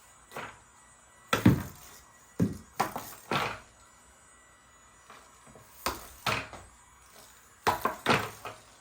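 Hard knocks and clacks in irregular clusters, the loudest about a second and a half in, from a toy LED air hockey set being handled or played.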